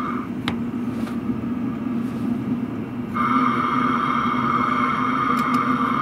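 Diesel heater exhaust running, a steady hum with a high whine on top, heard through a metal exhaust silencer held on the outlet pipe. The whine drops out for about three seconds near the start and then comes back, and there are two light knocks early on.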